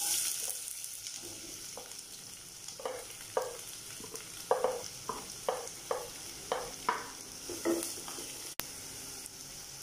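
Sliced onions dropped into hot oil in a nonstick pan, sizzling, with the hiss loudest as they go in. A wooden spatula knocks and scrapes about a dozen times as it pushes the onions off the plate and stirs them.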